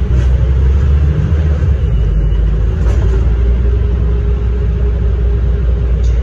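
Scania OmniCity double-decker diesel bus idling at a stop, a steady low rumble with a faint constant hum above it.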